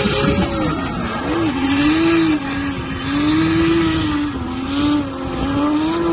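Car engine held at high revs with a high, buzzy note. The pitch dips briefly about a second in and a few more times, then climbs back each time.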